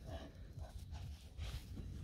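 Dogs playing close by on grass, making a few short, faint sounds, over irregular low thumps from footsteps and handling of the camera.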